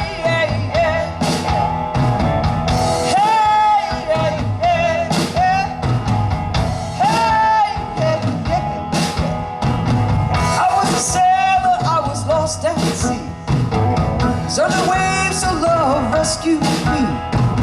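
Live rock band playing a blues-rock song, with a bending lead melody over bass guitar and drums.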